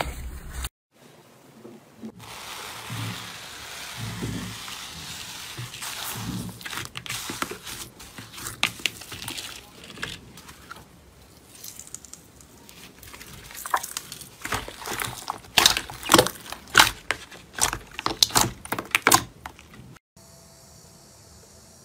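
Slime being kneaded, stretched and pressed by hand: soft squishing, then a run of sharp sticky clicks and pops that grows dense and loud in the second half. Near the end it drops to a faint steady hiss.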